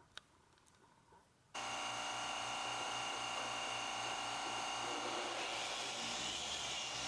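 Electric machine polisher running on car paint. It starts abruptly about a second and a half in, then runs steadily with a low, pulsing hum.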